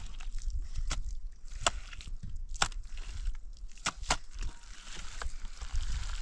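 A series of about five sharp, short knocks at uneven intervals, the last two close together, over a steady low rumble.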